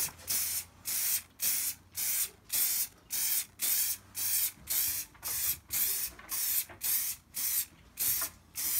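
Aerosol tin of Muc-Off Fabric Protect spraying in short hissing puffs, about two a second.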